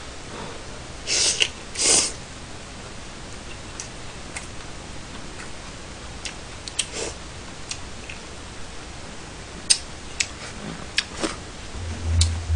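Someone eating spicy chewy noodles (jjolmyeon) close to a microphone: two loud slurps about a second and two seconds in, then chewing with scattered small clicks and smacks.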